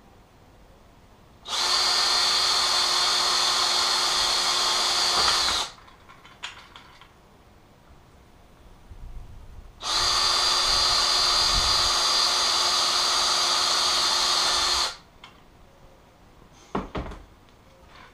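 Cordless drill running at a steady speed in two long runs of about four and five seconds, drilling into a plastic lazy Susan bearing and wood. A short knock near the end.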